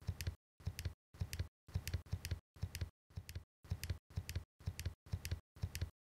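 A digital wall thermostat's up-arrow button pressed over and over, about two presses a second, each a short burst of sharp plastic clicks over a low hum with dead silence between; the set temperature is being turned up. The presses stop just before the end.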